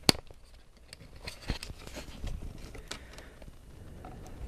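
Scattered light clicks and knocks of a laptop's plastic and metal internals being handled and worked loose by hand, with one sharp click right at the start.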